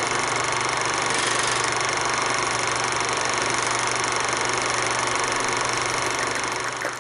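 Film projector running sound effect: a steady mechanical whirring with hiss, fading out near the end.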